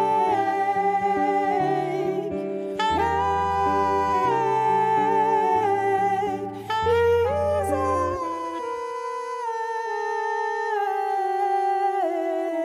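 Live jazz trio playing: wordless singing over saxophone and guitar, with sustained melodic lines. A low bass line drops out about eight seconds in.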